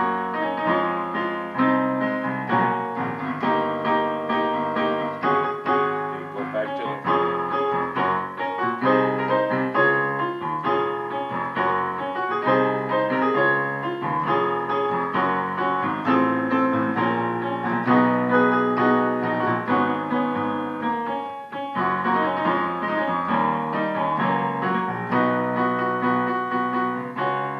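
Piano playing a slow gospel chord progression in D-flat major: full chords over moving bass notes (slash chords such as G flat over G flat and D flat over F), struck one after another, with a short break about 21 seconds in.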